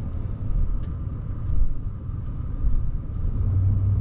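Steady low rumble in the cabin of a RAM 1500 pickup as it drives, from its 5.7-litre Hemi V8 and the road.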